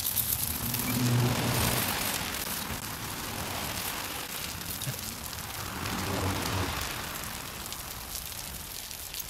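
Steady hiss of rain falling on pavement. A louder, low rumbling rush swells about a second in and again around six seconds in.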